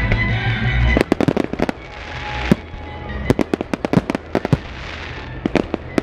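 Aerial fireworks bursting overhead: an irregular, rapid series of sharp bangs and crackles, the loudest about two and a half seconds in. Music plays loudly for the first second, then drops away as the bangs begin.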